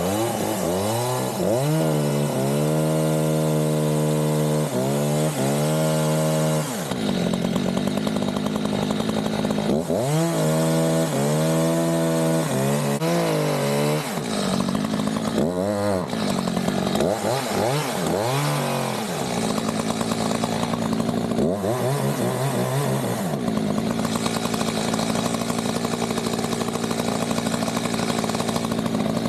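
Gas chainsaw revving up and back down in runs of a few seconds, its pitch rising and falling as it cuts into pecan wood, then running more steadily near the end.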